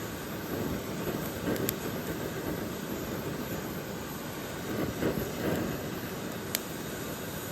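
Steady rushing of water, rain and river, with two sharp clicks.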